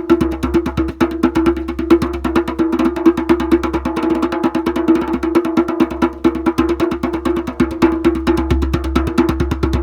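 A large drum struck in a fast, even run of strokes, about seven or eight a second, with a steady ringing pitch sustained beneath the hits.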